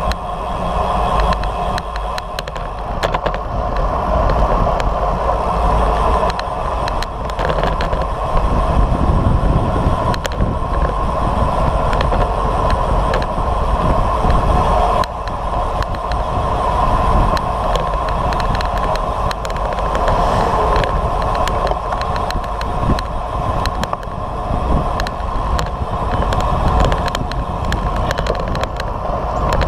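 Riding noise picked up by a bicycle-mounted camera: wind rushing over the microphone and road bike tyres rolling on asphalt, a steady noise with many small clicks scattered through it.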